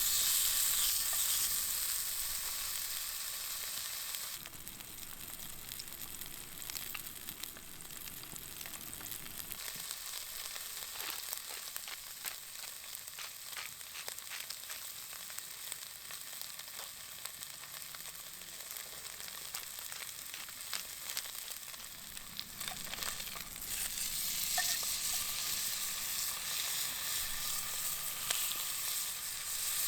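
Wagyu steak sizzling on a hot iron griddle over a campfire, a steady hiss with fine crackling spits of fat. It is louder at the start, eases after about four seconds and swells again about three-quarters of the way through.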